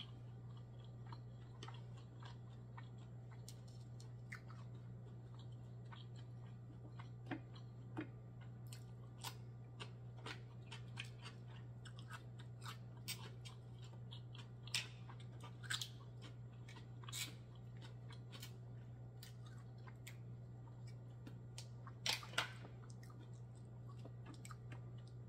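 Person chewing a mouthful of mussel meat and rice, with scattered short sharp mouth clicks throughout, a few louder ones near the middle and two close together near the end. A steady low hum runs underneath.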